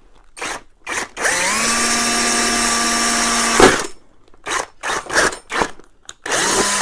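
Power drill with a 16 mm hole saw cutting through a fabric tank bag: a couple of quick trigger blips, then one run of about two and a half seconds that spins up to a steady whine and ends in a sharp knock, followed by several short bursts and a last spin-up near the end.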